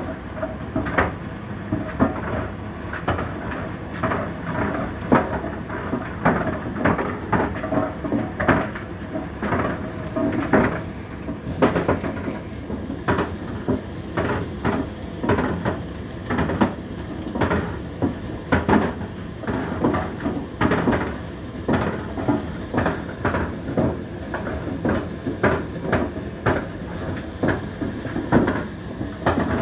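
Indesit IDC8T3 condenser tumble dryer running at the start of its cycle: a steady motor and fan hum with the drum turning and the load tumbling inside, knocking irregularly about once or twice a second.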